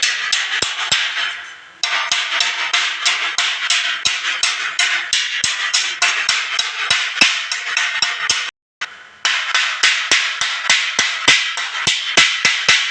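Stick-welding arc of an E6013 rod crackling in a pulsing rhythm of about three beats a second, the step (stitch) technique on 3 mm steel. The arc stops and restarts twice, briefly after about a second and a half, and again for under a second about two-thirds of the way in.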